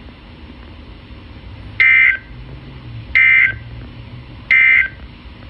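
Emergency Alert System end-of-message: three short, identical buzzing data bursts of the SAME digital code, about a second and a third apart. They mark the end of the severe thunderstorm warning broadcast.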